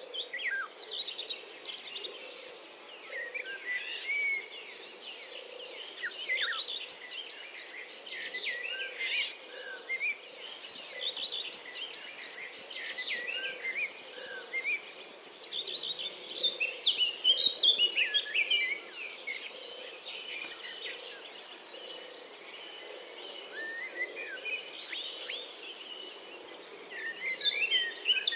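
Small songbirds singing and calling: a dense, continuous run of quick high chirps and twitters, busier around the middle and near the end.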